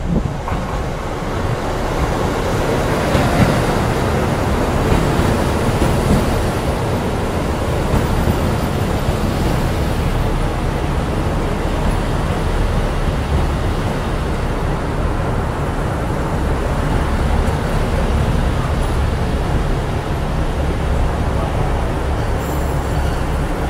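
Express train pulling into a station platform and rolling slowly past close by: a steady low rumble from the cars and wheels, with no horn or sharp events.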